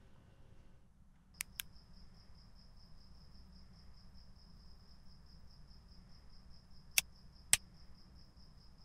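Two quick sharp clicks, and with them a high, thin chirp sets in, pulsing about five times a second over a low steady hum. Near the end come two louder single clicks about half a second apart.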